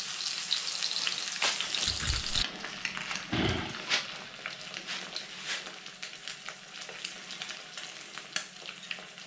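Oil sizzling and crackling in a frying pan on a portable gas camping stove as eggs fry. There are a couple of dull knocks about two and three and a half seconds in, after which the dense hiss thins into scattered crackles and pops.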